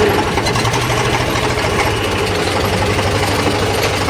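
Eicher 485 tractor's three-cylinder diesel engine idling steadily, with an even, fast firing beat.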